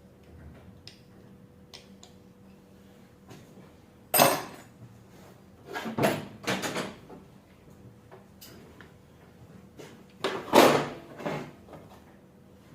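Hand tools and metal parts being handled: a sharp knock about four seconds in, a cluster of clattering knocks around six seconds, and another loud cluster near the end.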